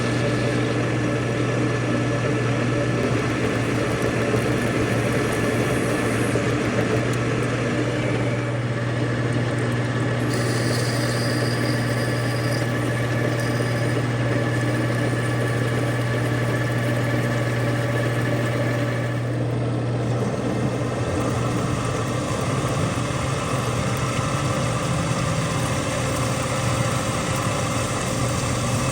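A metalworking machine tool running steadily: a constant machine hum with a strong low drone, its higher tones shifting a little about a third of the way in and again about two-thirds through.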